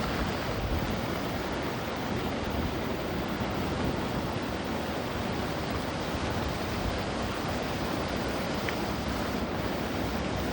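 Steady, even rushing noise with no distinct tones or strikes.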